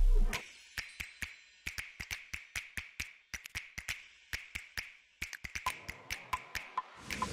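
Percussion background music: a falling bass sweep cuts off at the start, then a sparse rhythm of dry, clicky wood-block-like taps, with a few short pitched pings near the end.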